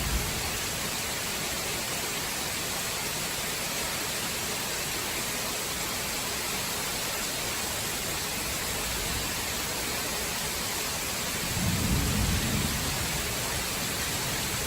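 Heavy rain pouring down in a thunderstorm, a steady hiss, with a low rumble of thunder swelling about twelve seconds in.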